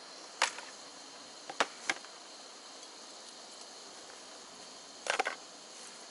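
Steady high-pitched buzz of insects, with a few sharp clicks: two near the start and a quick cluster about five seconds in.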